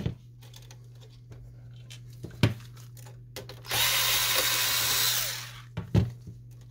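Sharp knocks from handling the plastic printer chassis. About midway comes a loud rushing noise of just under two seconds that fades out, as a gloved hand brushes close past the camera.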